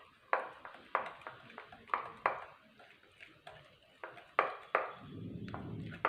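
A spoon clinking repeatedly against the side of a bowl while stirring thick batter, in quick irregular strokes with a short ring after each.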